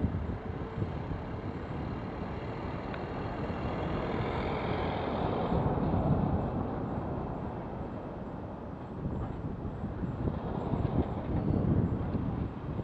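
A van passing close by on the road, rising to its loudest about five or six seconds in and then fading, over steady wind and tyre noise from a mountain bike being ridden.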